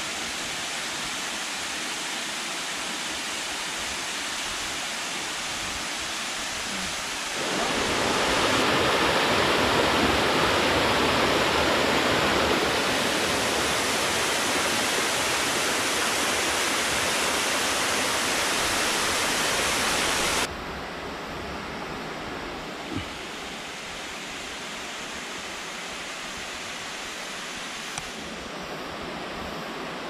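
A tall three-tiered waterfall rushing over rock, a steady, even noise of falling water. It grows louder about seven seconds in and drops off abruptly about twenty seconds in.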